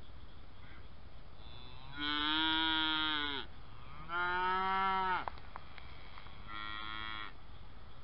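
Cattle lowing: three moos, the first two long and loud, the third shorter and fainter near the end, each dropping in pitch as it ends.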